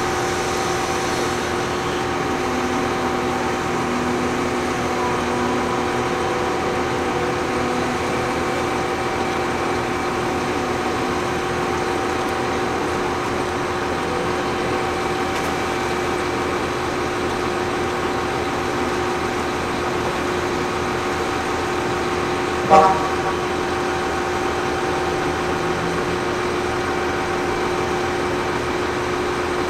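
Bauer GB 50 hydraulic grab rig running steadily, its engine and hydraulic pumps giving a constant drone with a steady whine. One short sharp knock about three-quarters of the way through.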